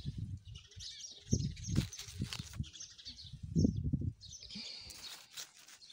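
Wind gusting against the microphone in irregular low rumbles, with faint high chirping now and then.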